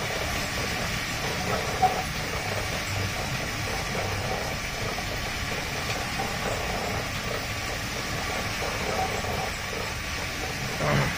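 Dog treadmill running with a harnessed dog's paws on the belt: a steady rolling rumble and hiss. A brief louder bump near the end.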